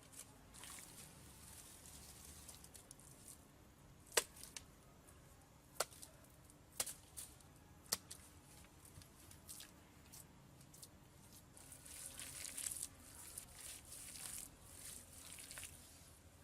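Quiet handwork with natural materials: soft scraping and rustling, broken by four sharp clicks or taps in the first half.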